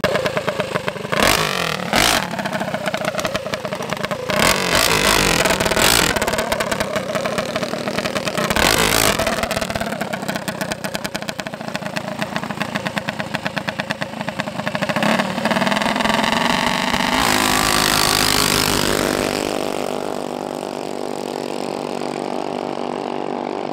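Racing mini bike's 236cc billet-head single-cylinder engine started and revved in several sharp blips, then opened up in a long rising run, settling to a steadier note near the end.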